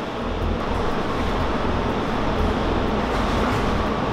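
Steady rumbling background noise with a strong low drone and an even hiss above it, with no distinct events.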